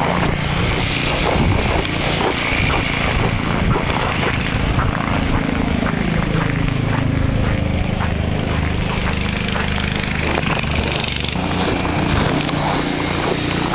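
Blizzard wind blowing on the microphone: a loud, steady rumble and rush, broken by many short crunches or knocks.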